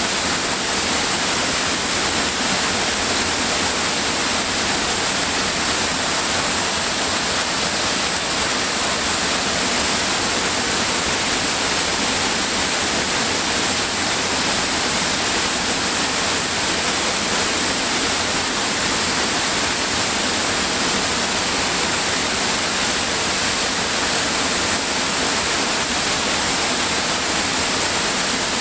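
Waterfall cascading over rock ledges into a pool: a steady, even rush of falling water, bright and hissy, that does not change.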